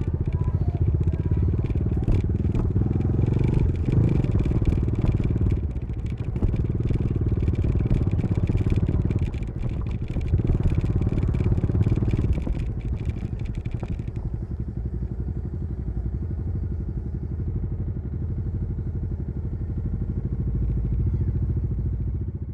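Bajaj Dominar 400's single-cylinder engine and exhaust under way, the note swelling and easing as the throttle opens and closes, with wind hiss. About two-thirds of the way in the wind hiss stops and the engine settles to a quieter, steadier beat.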